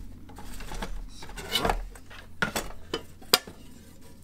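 Nested aluminium camping cookware being handled and unpacked: pots and a grill pan knocking and clinking against each other, with a few sharp clicks, the loudest about three seconds in.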